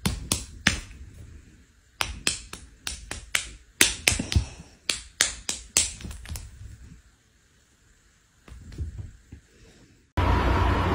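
A quick irregular series of sharp snapping clicks, about fifteen in the first six seconds and some in tight clusters, followed by a quiet stretch with a faint rustle. Near the end a steady hiss with a low hum cuts in suddenly.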